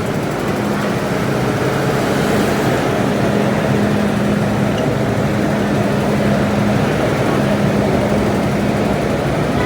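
Steady cabin noise inside an MTR Metro-Cammell electric multiple-unit train: an even rumble with a constant low hum.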